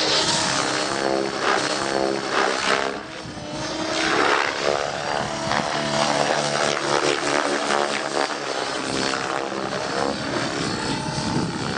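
Radio-controlled aerobatic helicopter flying low: the motor and rotor whine steadily, with a rush of blade noise. The sound dips about three seconds in and swells again a second later.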